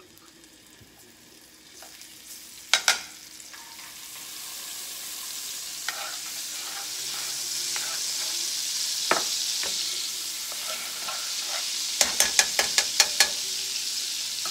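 Minced garlic sizzling in hot butter in frying pans, the sizzle building over the first few seconds and then holding steady. Two sharp clinks about three seconds in and a quick run of about seven taps near the end, from a utensil against the pans.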